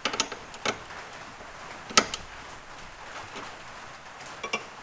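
Heavy rain falling steadily. Over it come a few sharp metallic clicks from a ratcheting spanner tightening bolts, the loudest about two seconds in and a short cluster near the end.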